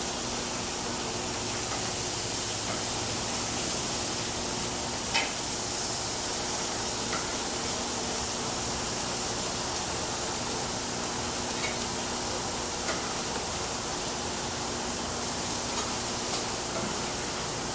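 Chicken pieces sizzling on a hot propane gas grill grate: a steady frying hiss, with a few faint ticks of tongs against the grate.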